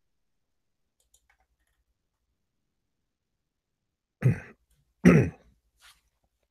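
A man clearing his throat close to the microphone: two short coughing sounds about a second apart, the second the louder, with a faint third just after.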